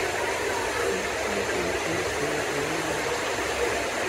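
Torrential tropical rain pouring down onto roofs and paving: a steady, dense hiss.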